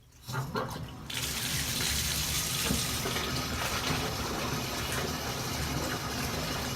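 Water running steadily from a tap, turned on about a second in.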